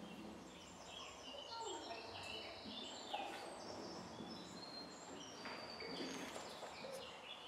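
Birds singing, a dense run of short high chirps and whistles.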